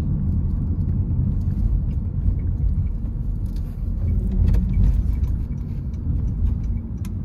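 Steady low rumble of a car driving, heard from inside the cabin: road and engine noise, with a few faint ticks.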